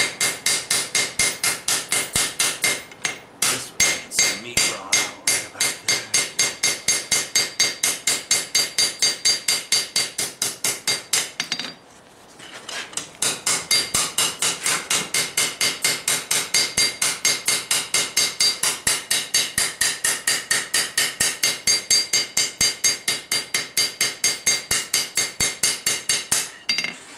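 Hand hammer striking a red-hot steel froe blade on an anvil in quick, even blows, about four a second, each with a short metallic ring. The smith is forging the wedge bevel onto the blade's edge. The blows pause briefly near the middle.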